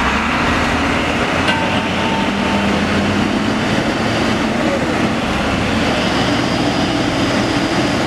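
Heavy diesel truck engine running hard with a steady loud drone, as a loaded Fuso truck struggles to pull through deep mud.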